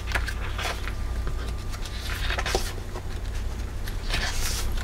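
Pages of a paper pad being turned and handled: scattered soft paper rustles and flicks, with a longer sliding rustle about four seconds in, over a steady low background hum.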